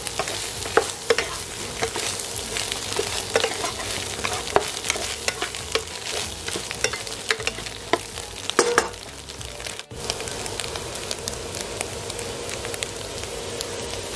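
Sweet preserved turnip and scrambled egg sizzling in a black non-stick wok, with a spatula scraping and clacking against the pan many times. About ten seconds in the spatula strikes stop and only a steady sizzle remains.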